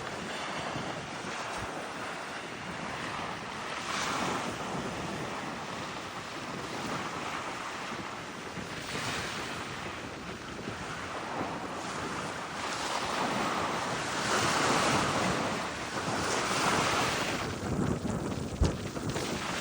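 Small waves breaking and washing in on a bay shoreline, swelling every few seconds, with wind gusting over the microphone. A single sharp knock near the end.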